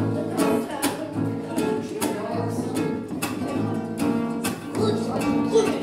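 Acoustic guitar strummed in a steady rhythm, about two strums a second, ringing chords.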